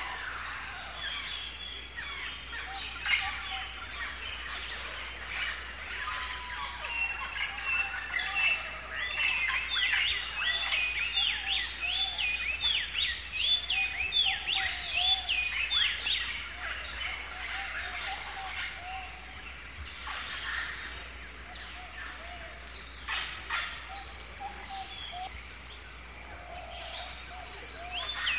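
Several birds calling and chirping together, with a quick run of repeated chirps in the middle and short clusters of very high chirps every few seconds.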